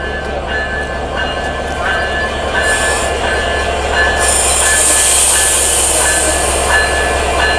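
American-built diesel locomotive being coupled to the train: a deep, steady engine rumble, with a high beep repeating about every half second. Loud hissing starts briefly about three seconds in and again from about four seconds in.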